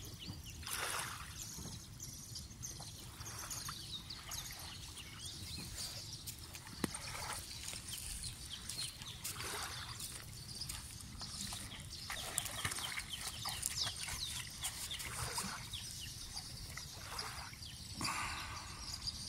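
Small birds chirping in the background, many short high calls, with small waves lapping at the shore every few seconds.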